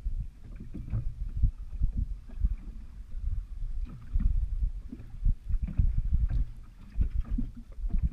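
Water slapping against a small boat's hull, with wind buffeting the microphone in uneven low gusts and occasional light knocks.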